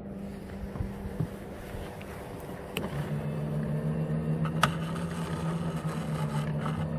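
Electric bow anchor winch on a boat switching on with a click about three seconds in, then running with a steady hum as it works the anchor rope, over a fainter steady hum. A second sharp click comes partway through its run.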